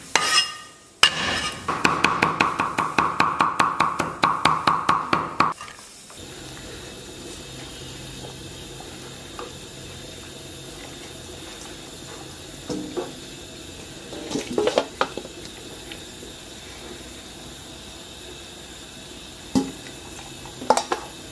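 Cleaver crushing garlic, then rapid chopping on a wooden chopping block, about five strokes a second, for several seconds. After that a steady low hiss of a simmering pot of stewing beef, with a few clinks of chopsticks against the pot.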